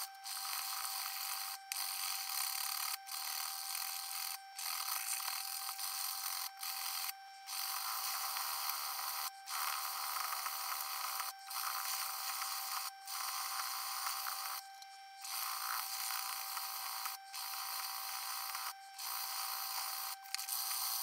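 Metal screwdriver shaft rubbed back and forth by hand on a sheet of P120 sandpaper, a steady gritty scraping that breaks off briefly about once a second as each stroke turns.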